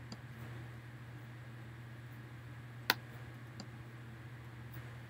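Computer mouse clicking: one sharp click about three seconds in and a few faint ticks, over a steady low hum.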